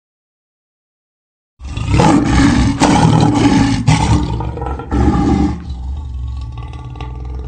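A loud lion's roar begins about one and a half seconds in and carries on for several seconds, easing to a weaker rumbling tail near the end.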